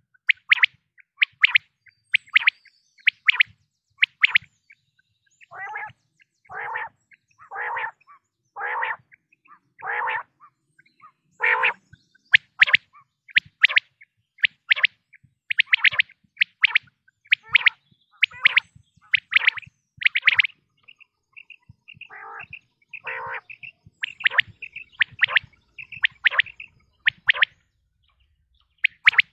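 Quail calling: a fast series of short, sharp high notes. About a quarter of the way in comes a run of longer, lower calls about once a second, and two more come near the three-quarter mark.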